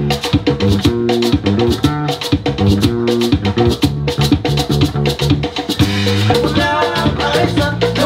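A live band playing, with an electric bass line and regular percussion strokes. A higher, wavering melodic line comes in about six seconds in.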